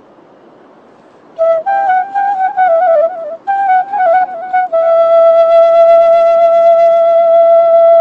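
Background music on a flute-like wind instrument. After a quiet start, a short ornamented melody begins about a second and a half in, then settles into one long held note.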